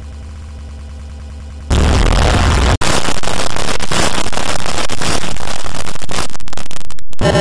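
Loud, harsh, heavily distorted noise from effects-processed logo audio, cutting in abruptly after a low steady hum about two seconds in. It drops out for an instant about a second later, then runs on until it cuts off sharply just before the end.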